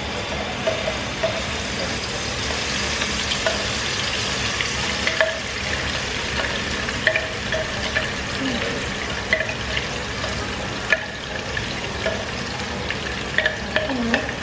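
Red chili paste frying in hot oil in a pan: a steady sizzle dotted with sharp crackles and pops.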